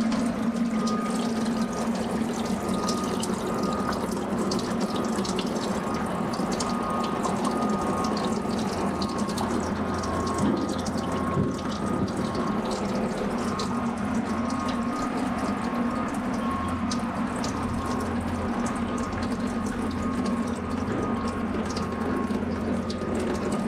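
Ratchet wrench clicking in quick, irregular runs as M6 bolts are turned to jack the water pump out of the BMW Z3's straight-six, over a steady low hum of shop machinery.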